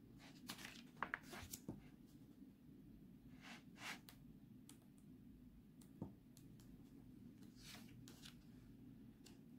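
Faint paper rustles and a few soft clicks of a picture book's page being turned and handled, mostly in the first couple of seconds, with a few lighter rustles later over quiet room tone.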